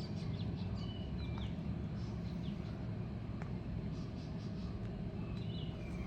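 Scattered short bird chirps and whistles over a steady low rumble.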